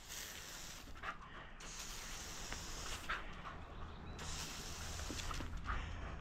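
Pressure washer wand spraying onto concrete in three long hissing bursts, the second right after the first and the third after a short pause, over a low steady rumble.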